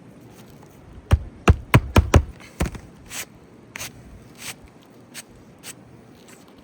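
Hammer driving roofing nails through a replacement shingle: six sharp strikes in quick succession between about one and three seconds in, then a few softer scrapes and clicks of shingle being handled.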